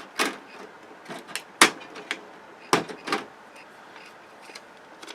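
A handful of sharp clicks and knocks of hard plastic and metal parts being handled, as a cable connector is worked loose from a flat-screen television's circuit board. The clicks fall within the first three seconds or so.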